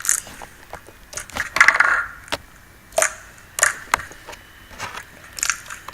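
Slime being squeezed and worked, giving crisp crackling and popping in a string of short irregular bursts, the loudest about one and a half seconds in.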